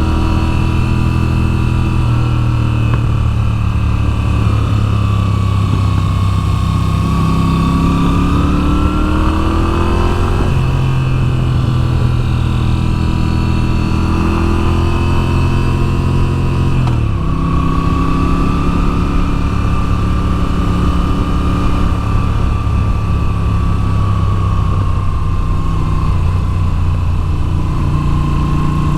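Moto Guzzi V7's 853 cc air-cooled V-twin running under way, its pitch climbing and falling as the bike speeds up and slows through curves, with abrupt pitch changes about ten seconds in and again near seventeen seconds.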